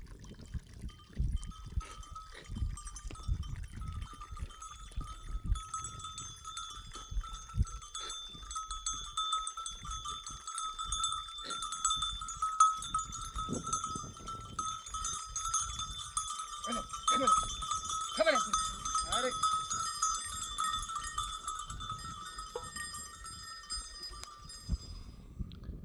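Bells on a grazing flock of sheep and goats ringing and clinking without letup, with a few short bleats about two-thirds of the way through.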